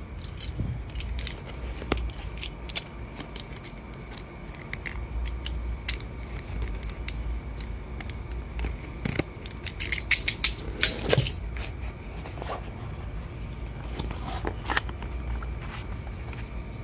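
A small cardboard box being worked open by hand: scattered clicks, scrapes and rustles of card and plastic, with a louder flurry of scraping and clicks about ten to eleven seconds in.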